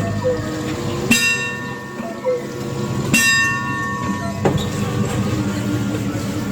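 Bell of a giant outdoor cuckoo clock striking, two strokes about two seconds apart, each ringing on with many overtones. A steady low hum runs underneath.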